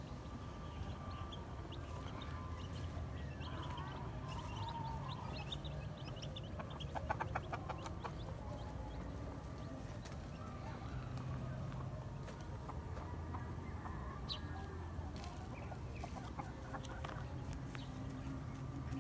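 Chickens clucking, with a quick run of clucks about seven seconds in, over a steady low rumble.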